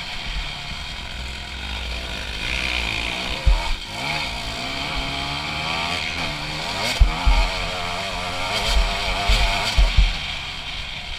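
Honda CRF250's single-cylinder four-stroke engine through an HGS aftermarket exhaust, running under load on a dirt trail, its pitch rising and falling with the throttle. A few short low thumps stand out, around a third of the way in and again in the second half.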